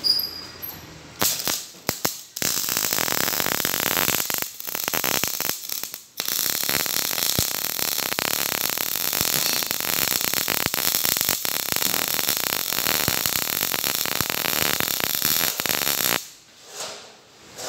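Electric arc welding on steel: the arc crackles and sputters. It starts about a second in, breaks off briefly twice, then burns steadily for about ten seconds before cutting off near the end.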